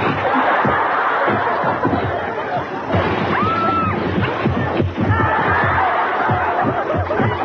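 Several people laughing loudly over background music, with a short high call or whoop about three and a half seconds in.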